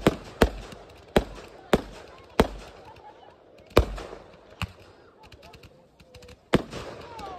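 A fireworks battery firing shot after shot, each a sharp bang. The bangs come about every half second at first, then thin out to a few spaced bangs, with a short lull before a final one near the end.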